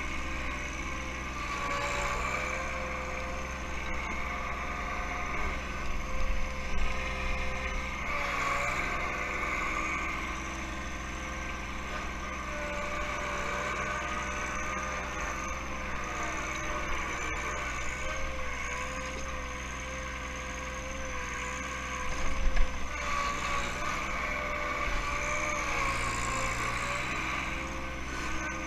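John Deere 1-series compact tractor's three-cylinder diesel engine running steadily while working a backhoe, with a wavering whine over the engine note. There are two short louder bursts of clatter, one about six seconds in and one past the twenty-second mark.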